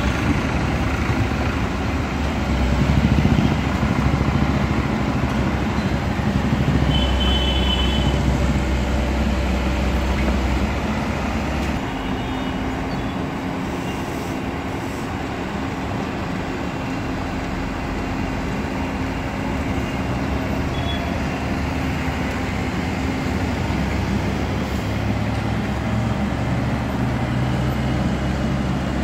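Komatsu hydraulic excavator's diesel engine running as the machine works, its note changing with load: a heavy low drone that drops back about twelve seconds in and picks up again near the end.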